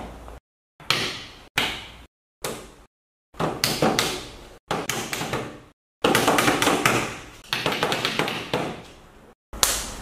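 A series of taps and knocks on a wooden tabletop, some single and some in quick runs, broken by several abrupt silent gaps.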